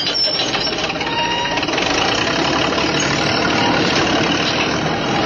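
Bulldozer working: a heavy engine running steadily, with metallic clanking and thin high squeals over it, loudest about the first second.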